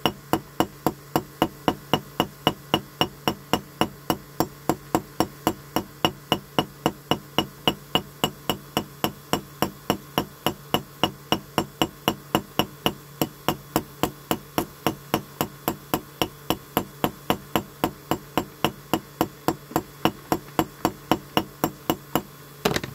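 Rapid, evenly spaced ticking, about four clicks a second, over a steady low hum. It stops suddenly near the end.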